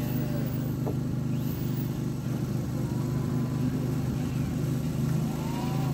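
An engine running steadily at an even pitch, with a low hum.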